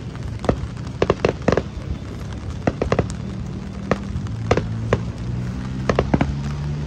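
Fireworks going off in an irregular series of sharp bangs, several in quick succession about a second in and again near the end, over a low steady hum that starts partway through.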